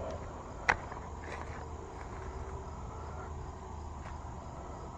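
Steady outdoor background of insects chirping over a low hum, with one sharp click a little under a second in and a couple of faint taps after it.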